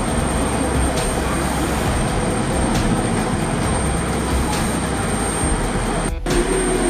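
Passenger jet airliner's engines giving a steady, loud rush of noise with a thin high whine running through it. The sound cuts out for a split second about six seconds in.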